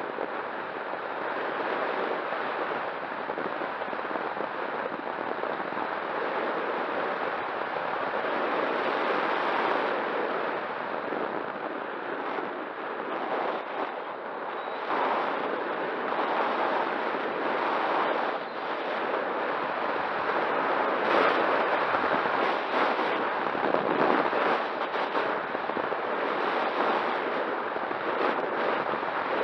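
Wind buffeting the microphone: a steady rush with crackling gusts that grow louder past the middle, over a faint steady hum.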